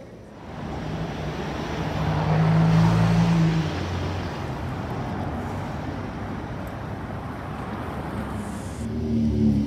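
Lamborghini Aventador Roadster's V12 engine pulling away, rising in level and loudest about two to three seconds in. It fades near four seconds into steady city traffic noise.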